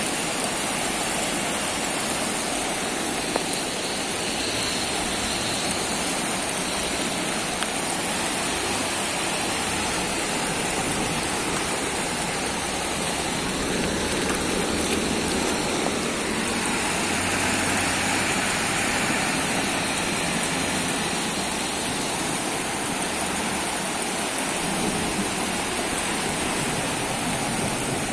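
Heavy rain falling on a flooded street while a torrent of muddy floodwater rushes across it, a steady unbroken wash of water noise.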